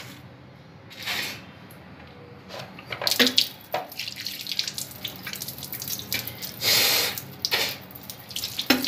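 A person blowing her nose forcefully into a washbasin several times in short noisy blasts, with a tap running into the sink from about three seconds in.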